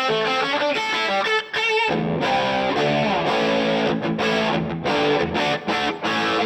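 Electric guitar played through a DVII guitar amp with a distorted tone: a quick run of single notes ending in a wavering vibrato note, a short break about two seconds in, then held notes ringing on.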